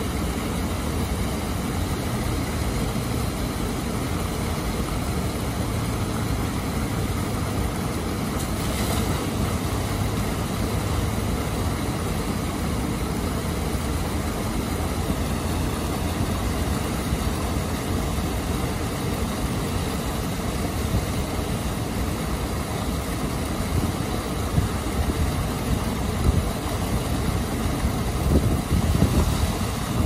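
Water pouring over a low weir into a churning pool, a steady low rushing roar. A few low bumps come near the end.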